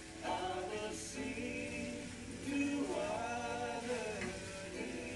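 Background music with a singing voice carrying a melody.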